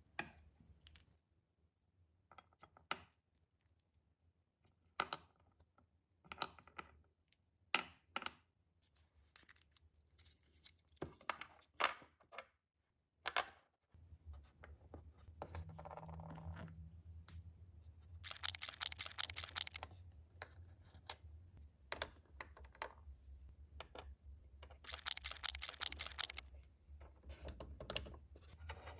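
Tiny plastic miniature kitchen pieces being handled and set down: scattered light clicks and taps, then two bursts of fast rattling, over a low hum in the second half.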